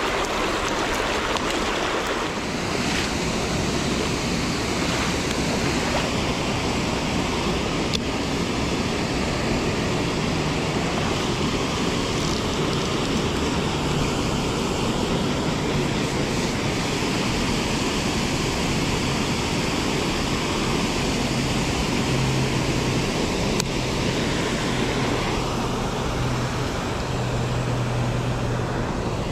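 Steady rushing of a shallow river flowing over rocks and a small weir.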